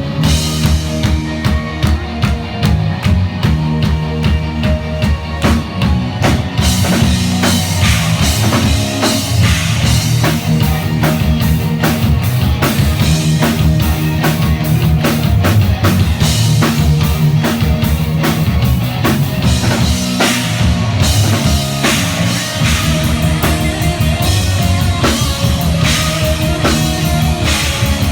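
Live heavy rock band playing loud: distorted guitars and bass over a drum kit with fast, driving drumming, the sound thickening about six seconds in.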